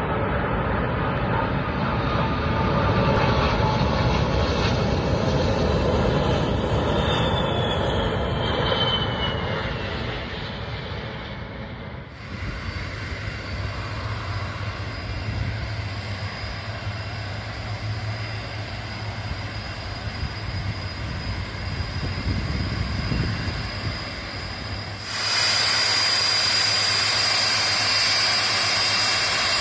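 Boeing 747-400's four jet engines: a loud low roar as the jumbo passes on its landing approach, with a high whine that falls in pitch as it goes by. Then the airliner taxiing at low power, a steady low rumble with a constant high engine whine, louder in the last few seconds.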